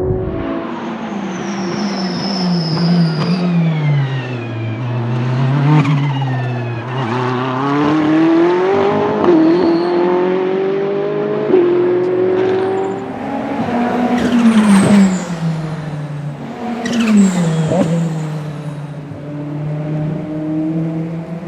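Ferrari 488 GT3's twin-turbo V8 racing engine accelerating and braking through the gears, its pitch rising and falling many times with sharp blips on the downshifts. A high turbo whistle sounds near the start, and a few sharp cracks come in the middle.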